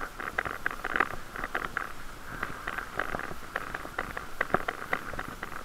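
Bicycle riding along a street: irregular clicks and rattles, several a second, over a steady hiss.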